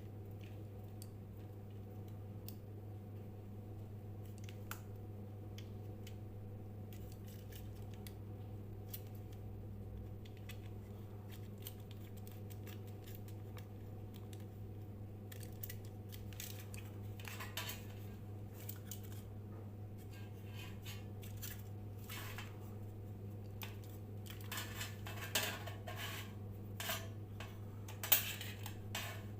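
Steady low electrical hum with overtones, the kind a ceiling fan motor or inverter gives off when fed from an inverter. Over it come scattered small clicks, then, from about halfway, repeated metallic clinks and taps of small tools or parts, loudest near the end.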